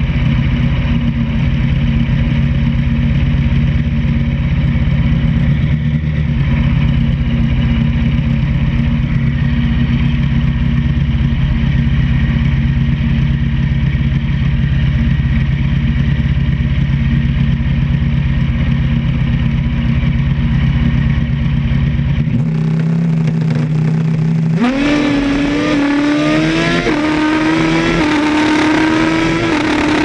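A vehicle engine idles steadily. About 22 seconds in the idle drops away, and a couple of seconds later the engine pulls away, climbing in pitch through a couple of gear changes.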